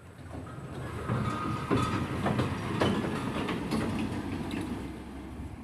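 A vehicle crossing a bridge: its sound builds, peaks two to three seconds in, then fades away, with a few sharp clanks as it rolls over the deck.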